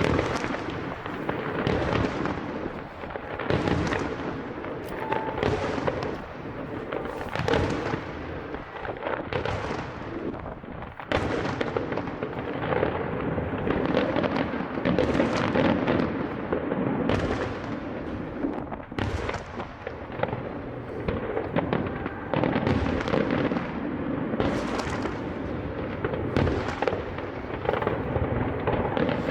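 Aerial fireworks going off in a dense, unbroken barrage of bangs and crackling, a fresh loud burst every second or two.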